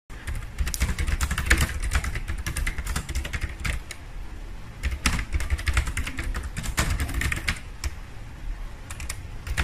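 Fast typing on a laptop keyboard: a quick, uneven run of key clicks that keeps going without a break.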